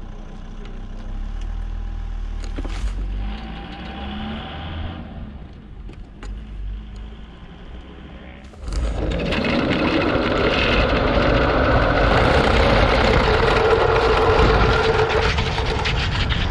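A low rumble, then about eight and a half seconds in a loud rushing, rattling noise starts suddenly as the tow line pulls the ground-level camera rig along the concrete runway, with a steady whine running through it and wind on the microphone.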